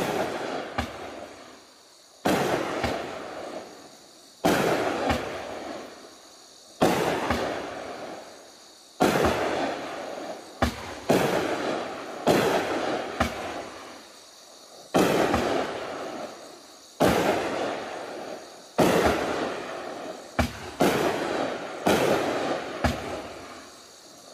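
A 200-gram consumer repeater cake, Raccoon Fireworks' Raging Willow, firing shot after shot about every two seconds. Each shot is a sharp report, sometimes with a smaller second pop just after, trailing off in a fading crackling hiss.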